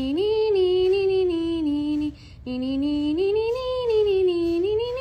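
A person's voice singing two long wordless notes, each gliding up and then down in pitch, with a short break between them.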